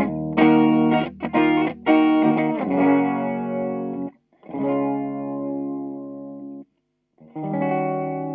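Rock band music: electric guitar with effects playing quick, choppy chords over bass, then single chords struck and left to ring out, each cut by a short silence, as the song winds down to its end.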